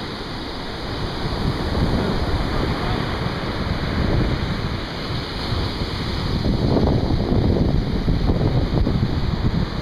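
Wind buffeting the microphone over waves breaking on a beach, a steady noisy rush that swells louder for a couple of seconds past the middle.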